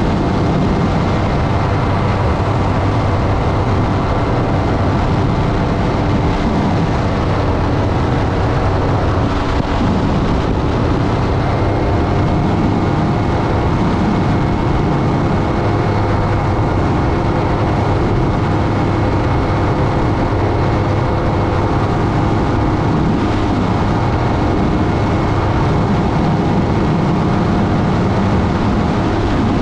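Aerolite 103 ultralight's two-stroke engine running steadily at cruise power in flight, a constant drone with rough wind rush underneath.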